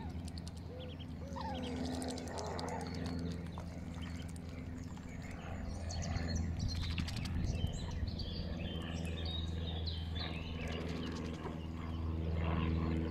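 Birds chirping and peeping, short high calls scattered throughout, over a steady low hum.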